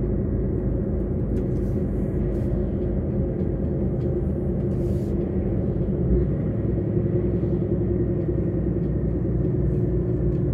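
Truck's diesel engine running steadily as it drives along, with tyre and road noise. The low rumble grows a little deeper about six seconds in.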